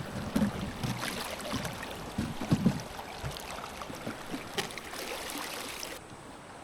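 Mountain river water running and splashing, with irregular low thumps and a few clicks; the sound drops suddenly near the end.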